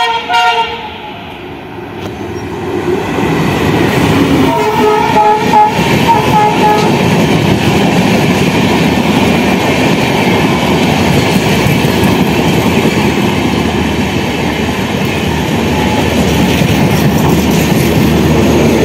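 The Maitree Express passenger train passing at speed: a short horn blast at the start and a second, longer blast a few seconds in. Then a steady rumble and clatter of the coaches' wheels over the rails.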